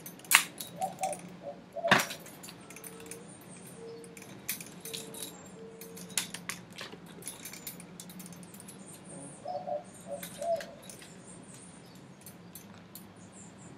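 Spear gun rigging being handled: light clicks, taps and small metallic rattles as the shooting line is worked around the reel and gun, with two sharper knocks in the first two seconds.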